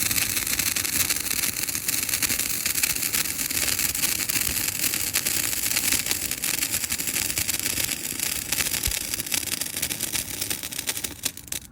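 A 14-inch crackling sparkler burning with a loud, dense, rapid crackle that cuts off suddenly near the end as it burns out.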